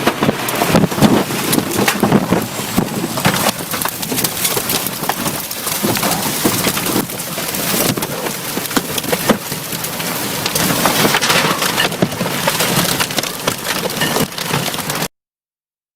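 Loud storm noise: wind and rain hissing on the microphone, with many sharp crackles throughout. It cuts off suddenly near the end.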